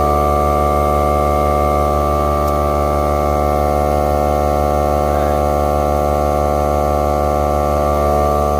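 Several cordless tire inflators running at once, making a steady, loud drone of many held tones as they pump car tires close to their 36 PSI target.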